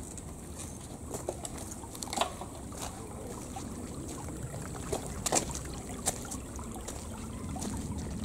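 A small, clear stream trickling and gurgling, with a few sharp clicks scattered through, the loudest about two seconds and five seconds in.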